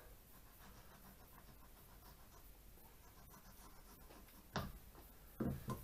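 Faint scraping of a sharp knife slicing a dogfish fillet away from the cartilage on a wooden cutting board, with two short knocks near the end.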